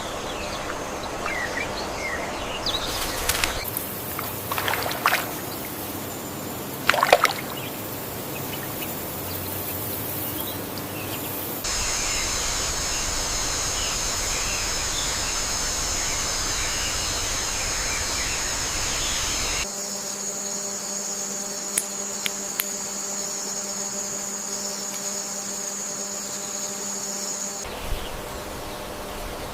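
Nature ambience in spliced segments that switch abruptly every several seconds: a hiss of running water with scattered bird chirps, then a steady high insect drone, then a bed holding several steady tones.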